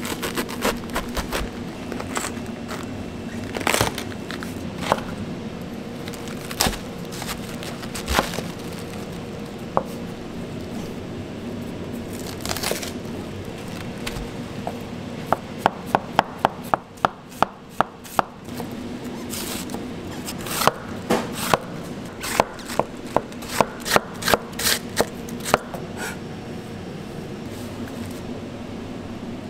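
Tamahagane chef's knife cutting a whole head of cabbage on a plastic cutting board. It starts with slow, uneven cuts through the head, then about halfway through it shreds in runs of quick, even knife strokes against the board, about four a second. A steady low hum runs underneath.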